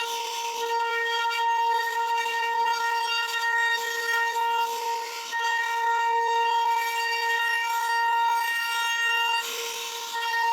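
CNC router spindle running with a steady high-pitched whine. The bit's cutting noise swells up and fades a few times as it carves the wood.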